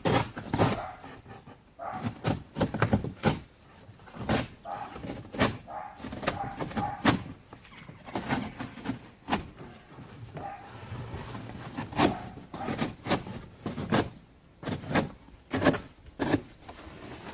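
Irregular knocks, clatters and rustling as a new mountain bike is handled and freed from its box and packaging.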